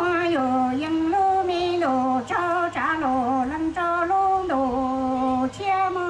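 A woman singing a slow Hmong song solo through a microphone and PA, in phrases of long held notes with vibrato and short breaks between them.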